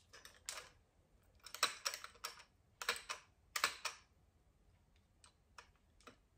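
Plastic clicks and light rattles from a spray mop's handle being turned over in the hands, in short clusters about a second apart, with two fainter clicks near the end.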